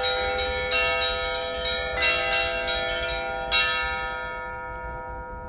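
Russian Orthodox church bells being struck in a rapid peal (zvon), several bells of different pitch sounding together. The last strokes come about three and a half seconds in, then the bells ring on and fade away as the peal ends.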